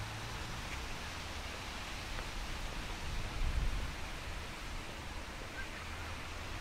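Steady outdoor ambient hiss, with a brief low rumble swelling about three and a half seconds in.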